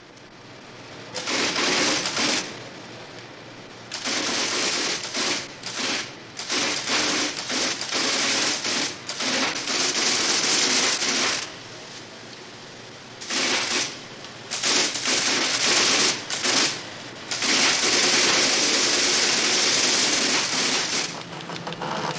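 Loud hissing noise that switches on and off abruptly in irregular bursts, some a fraction of a second long and some lasting two or three seconds.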